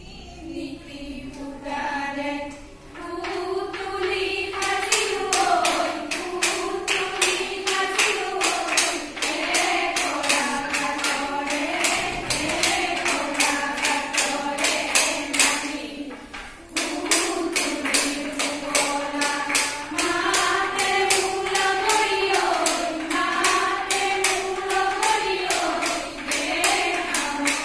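A group of women sings a Jeng Bihu song in unison over a sharp clicking beat of about four clicks a second. It opens with a couple of seconds of twanging from gogona, the Assamese bamboo jaw harp. The song breaks off briefly about two-thirds of the way through, then resumes.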